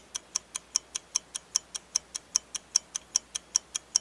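Clock-ticking sound effect: fast, evenly spaced ticks at about five a second.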